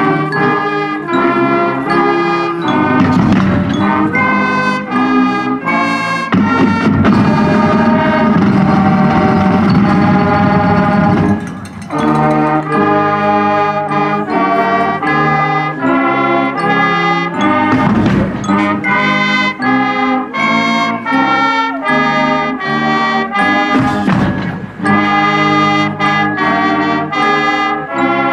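Marching band music: trumpets and trombones playing a chordal tune in rhythm over drums, with a short break a little before halfway through.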